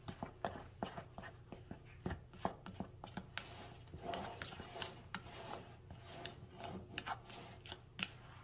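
A spatula stirring dry flour mixture in a glass mixing bowl: soft, irregular scraping with light taps against the glass.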